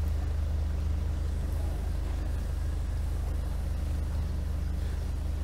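Kent 28 Launch motorboat's engine running with a steady low drone at slow manoeuvring speed while the boat is brought in to moor.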